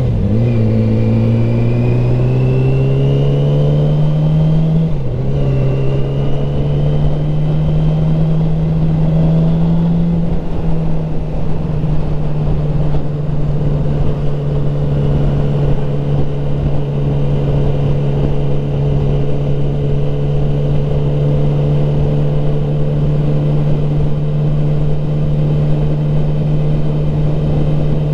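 2007 Yamaha R6's 599 cc inline-four engine accelerating hard up the gears. Its pitch climbs, drops with an upshift just after the start and again about five seconds in, then holds steady at cruising speed from about ten seconds in, over constant wind rush.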